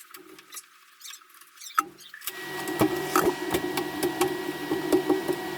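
Small electric motor, most likely a power drill, running steadily from about two seconds in, with irregular clicks and knocks over it. Before that there are only faint short stops and starts.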